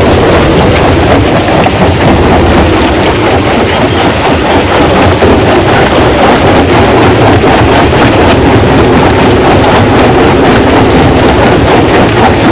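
Stone-crushing machinery running loud and steady, with a dense, continuous clatter of small knocks as rock is broken up.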